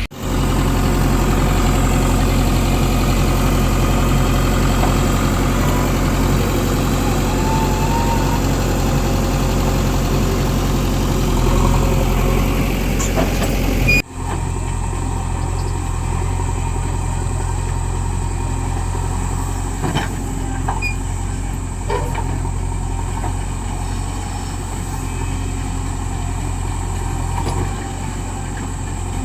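Heavy diesel engine running steadily, with an abrupt cut about halfway through, after which the engine drone carries on slightly quieter. There are a couple of short knocks in the second half.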